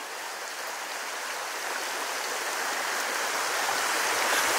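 Small creek running over rocks and riffles: a steady rush of water that grows gradually louder.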